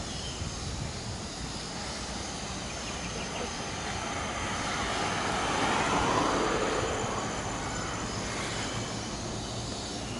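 Road ambience with a motor vehicle passing, its sound swelling to a peak about six seconds in and fading again.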